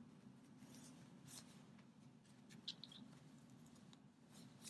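Near silence, with a few faint, brief rustles of a white cotton glove being pulled onto a hand.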